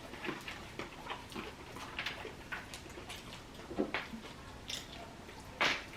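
People eating fried chicken: quiet, irregular chewing and mouth noises with scattered small clicks of hands and bones on plates, a couple slightly louder near the end.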